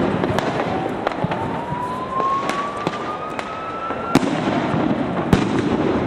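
Firecrackers going off sporadically, single sharp bangs every second or so over a steady background din. A long whistle rises slowly in pitch through the first four seconds and stops abruptly at a bang.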